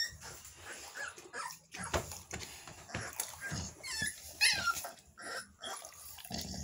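American bully puppies whimpering and yipping in short high-pitched cries, several in a cluster about four and a half seconds in. Knocks and scuffling sound under the cries as the dogs move about the crate.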